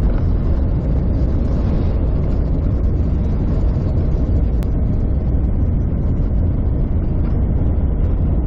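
Steady low rumble of a vehicle driving on an unsealed dirt road, heard from inside the cabin: tyres on gravel and engine, as a three-trailer cattle road train passes the other way about midway through.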